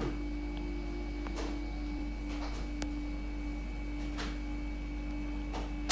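Steady electrical-sounding hum with a few faint clicks, then a sharp knock near the end.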